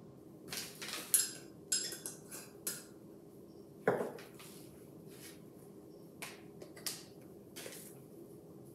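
A small spice jar handled over a kitchen counter: light clicks and taps of its lid and shaking in the first few seconds, then one louder knock as the jar is set down on the wooden countertop about four seconds in. A few softer taps follow as another shaker is picked up.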